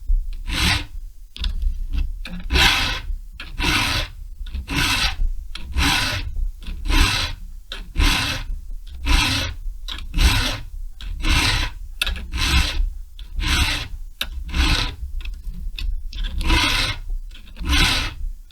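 Hand file rasping across a chainsaw chain's cutters in steady, even strokes, about one a second, sharpening the cutting edges.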